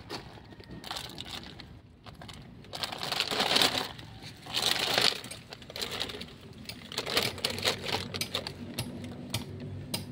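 Plastic sheeting and a plastic sack rustling, louder in two bursts a few seconds in, with scattered light clicks of small bones being handled and tapping together.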